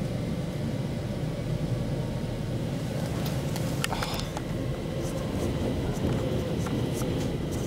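Stockholm Metro C20 train running, a steady rumble heard from inside the car. A few short knocks from the camera being handled come around the middle.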